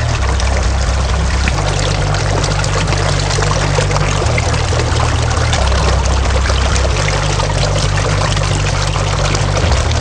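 Small backyard pondless waterfall: water spilling over stone ledges and splashing into a shallow rock-lined pool, a steady rush and splash.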